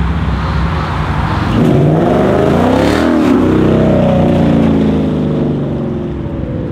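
Sports car engine accelerating hard, its pitch climbing from about a second and a half in, then holding at high revs before easing off slightly near the end.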